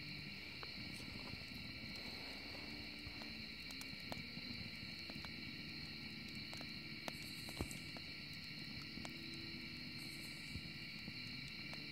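Wood fire burning in a fire pit, with scattered small crackles and pops and one sharper pop past the middle, over a low rumble. A steady chorus of night insects runs underneath.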